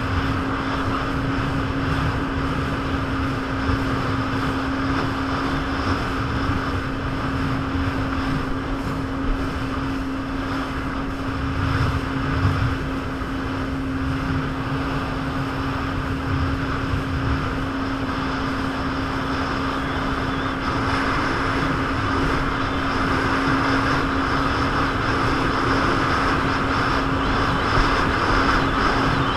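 Jet ski engine running at a steady pitch under way, over a steady rushing noise that grows a little louder in the last third.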